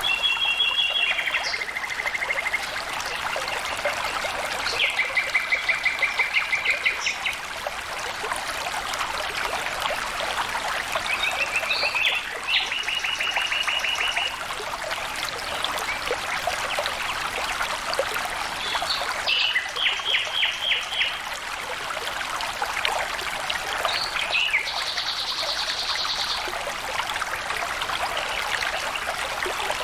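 Water flowing steadily in a stream. A songbird sings about five short trills of fast repeated notes over it, every five to seven seconds.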